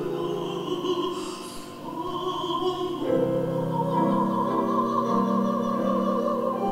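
A woman singing a Russian romance with piano accompaniment. About halfway through she settles into a long held note.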